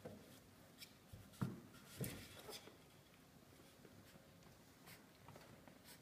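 Four-week-old Australian Labradoodle puppies' claws scratching and scrabbling against a wooden step and pen wall, with a few soft knocks. The loudest come about one and a half and two seconds in.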